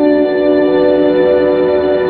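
Background music of held, steady notes, moving to a new chord at the start.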